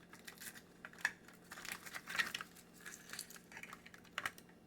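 Light clicks and taps of small plastic pieces being handled, with soft crinkling of plastic packaging, irregular and scattered.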